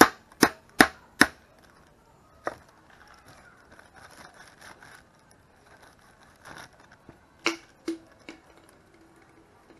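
A hammer knocking on the back of a knife blade to drive it through a whole snook, cutting the fish into steaks. There are four quick sharp strikes at the start, a single one about two and a half seconds in, and three more near the end.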